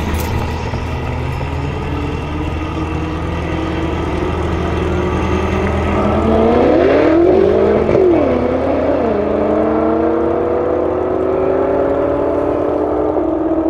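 Two cars at full throttle, one the 812 hp Horse Power Technics Stage 2+ BMW M6 F13 convertible with its twin-turbo 4.4-litre V8, rolling past and pulling away hard. The engine notes climb slowly, are loudest about halfway through with a couple of quick dips in pitch, then climb steadily again as the cars draw away.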